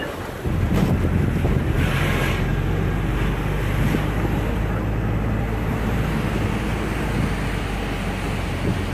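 Wind noise on the microphone of a phone filming from a moving vehicle, over a steady low drone of engine and road noise.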